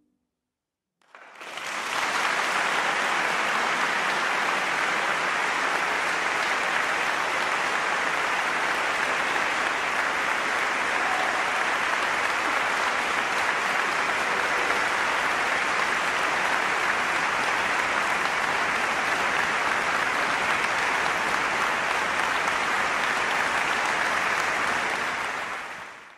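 Concert-hall audience applauding steadily. It starts suddenly about a second in and fades out at the very end.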